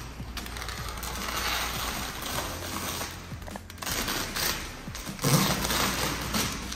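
Knifeless cutting tape being pulled out from under vinyl wrap film, a crackling, tearing rustle that swells twice.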